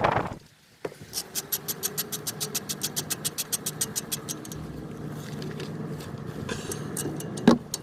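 Hand ratchet clicking quickly and evenly, about eight clicks a second for a few seconds, as a caliper bolt is turned during a brake pad change. A steady low hum runs underneath, and a single sharp knock comes near the end.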